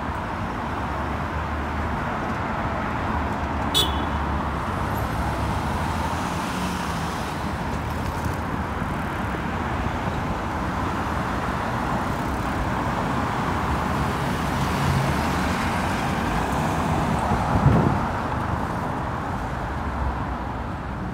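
Steady city street traffic noise, cars running past, with a brief sharp click about four seconds in and a short dull thump near the end.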